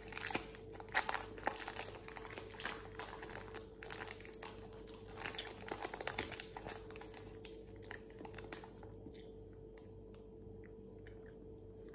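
Gold foil wrapper of a Cadbury Old Gold Caramel bar crinkling and crackling as it is peeled open by hand. The crackle is dense and irregular, and dies away about nine seconds in, leaving only a few faint clicks.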